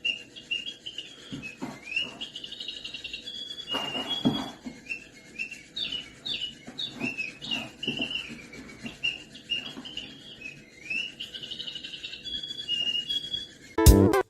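A small bird chirping and twittering in a rapid, continuous run of short high notes, with a few soft knocks about a second and a half and four seconds in. Loud music cuts in just before the end.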